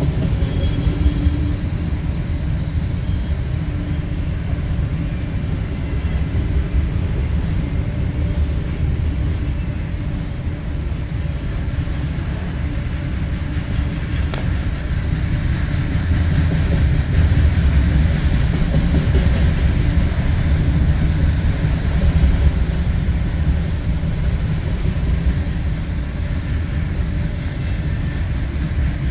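Freight train of autorack cars rolling steadily past a grade crossing: a continuous low rumble of wheels on rail, heard from inside a car.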